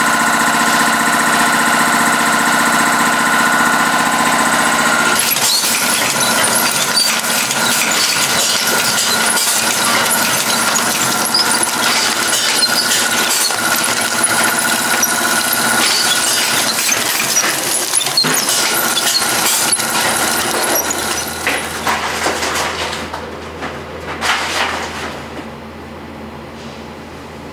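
Factory machinery running. First a steady humming whine, then a natto packaging machine clattering with rapid ticks over a steady high whine. The noise falls away to a quieter low hum near the end.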